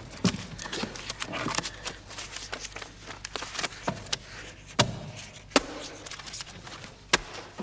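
Busy background ambience: a steady murmur of noise with many scattered sharp clacks and knocks, a few louder ones in the second half.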